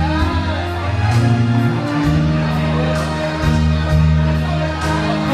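A song's backing music, with a bass line changing notes about once a second and a steady cymbal beat.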